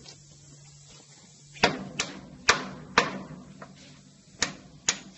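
Hammer striking a steel center punch in a series of sharp metallic taps, about six blows roughly half a second apart starting about a second and a half in, tapping a bolt out of the caravan's leaf-spring mounting.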